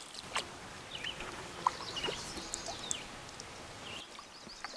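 Birds chirping and calling in short phrases over a steady outdoor hiss, with a few sharp clicks.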